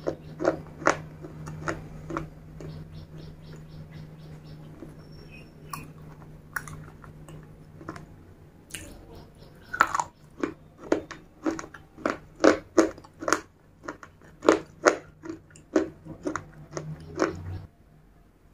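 Close-up crunching and chewing of hard grey slate pieces in the mouth. A few bites come at the start and quieter chewing follows, then a run of sharp crunches about two a second in the second half before they stop near the end.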